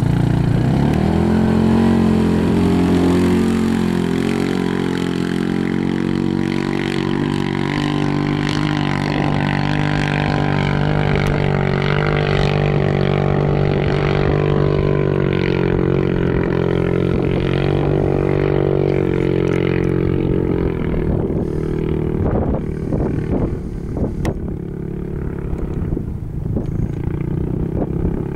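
Off-road side-by-side engine revving up as it pulls away on sand, then held at high, steady revs for about twenty seconds before dropping away. After that come irregular clatter and rushing noise.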